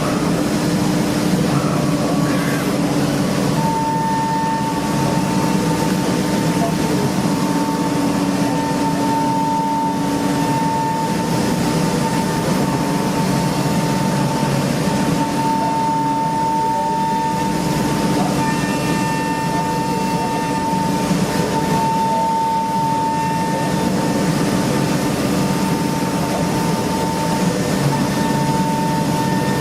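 CNC machining centre running while it machines an engine block: a steady mechanical noise with a low hum, joined about four seconds in by a steady high whine.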